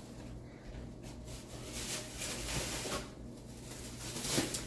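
Plastic shopping bag rustling as it is handled, the rustle swelling for a second or two in the middle, with a brief sharp crackle near the end.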